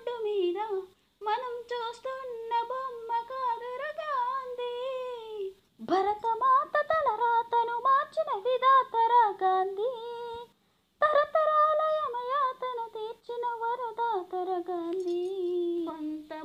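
A female voice humming a wordless melody in long phrases with vibrato, with brief pauses between phrases and little accompaniment.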